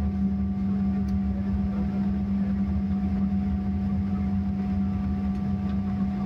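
Steady low mechanical drone with a constant low hum and a few fainter steady tones above it, unchanging in level.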